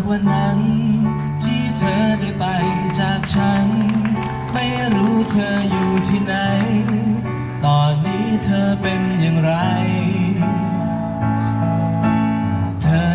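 Live music: a band playing a song with guitar and singing over a steady bass line.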